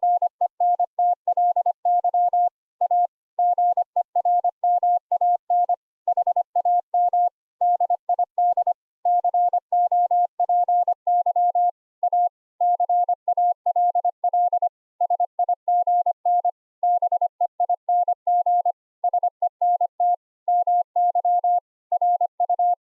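Morse code (CW) audio tone carried over an internet voice call, one steady pitch keyed rapidly into dots and dashes with short gaps between words: an operator sending a text file as code.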